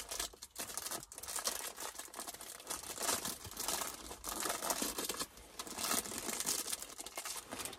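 Wrapping on a piece of fudge crinkling and tearing as it is unwrapped by hand, in irregular crackles.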